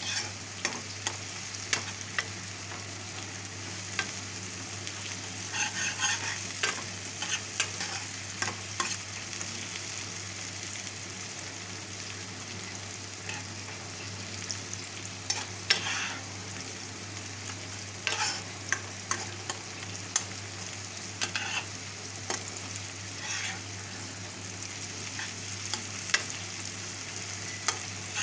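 Onions frying in oil in a pan, with a steady sizzle and a spatula stirring and scraping against the pan now and then. A low steady hum runs underneath.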